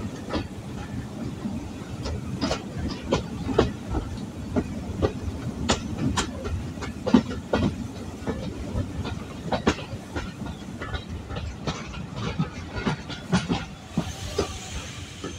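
Passenger carriage wheels of a moving train clattering over rail joints and pointwork: irregular sharp clicks and clunks over a steady low rumble. A hiss comes in near the end.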